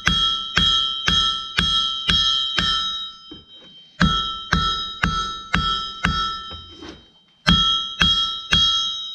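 Blacksmith's hammer striking hot rod stock on a ringing anvil, flattening a short section of the rod: steady blows about two a second, each ringing, in three runs broken by brief pauses.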